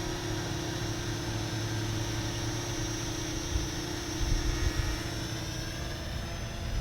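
Parrot Anafi quadcopter's four propellers whining steadily in flight: a steady hum with a high whine above it. Low rumbling bumps come in about four to five seconds in.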